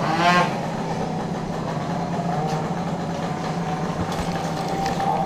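Steady low engine drone with an even, unchanging pitch.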